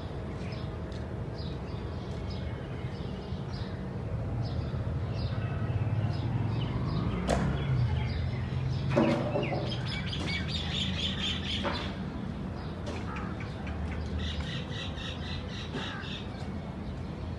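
Many birds chirping in short high notes, with two spells of rapid repeated notes in the second half and one louder, lower call about halfway through, over a steady low rumble.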